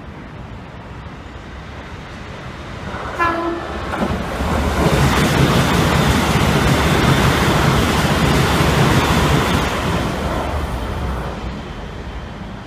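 A Keikyu express train sounds a short horn blast about three seconds in, then runs through the station at around 120 km/h. The rush of its wheels and motors swells to a loud peak and fades as the train passes.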